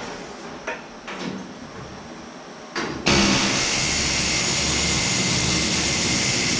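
Pneumatic rivet hammer running hard for about three and a half seconds as it sets a hot steel rivet. It starts abruptly about three seconds in and cuts off near the end, after a few light metal clicks.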